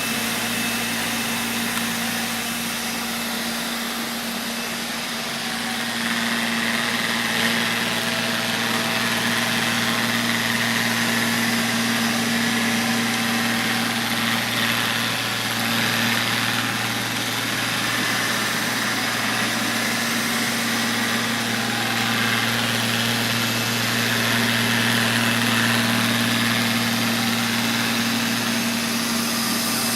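Neato XV-12 robot vacuum cleaning: its suction motor and brush run with a steady hum and hiss, getting a little louder about six seconds in.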